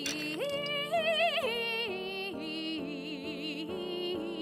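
A woman's voice singing a slow, sad song in an operatic style with strong vibrato. She holds long notes that climb in the first second or so and then step back down, over a soft orchestral accompaniment.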